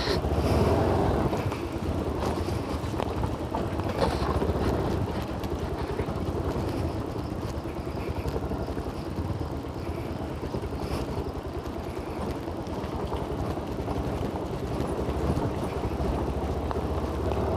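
Motorcycle engine running at low speed with wind and tyre noise as the bike rolls slowly down a wet dirt track: a steady low rumble under an even hiss.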